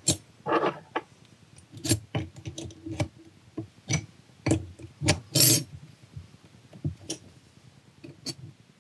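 A wrench clicking and clinking on the bolts of a GTX2871R turbocharger's housing as they are tightened to lock the clocked housing in place: about a dozen irregular sharp metallic taps, the loudest about five and a half seconds in.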